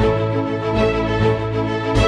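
Background music: held instrumental notes over a steady low bass.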